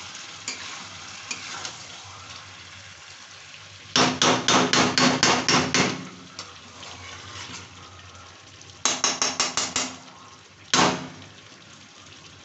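Metal spatula knocking hard against a kadhai: a quick run of about ten strikes, about five a second, roughly four seconds in, a shorter run near nine seconds, then one last knock. A faint frying sizzle runs beneath.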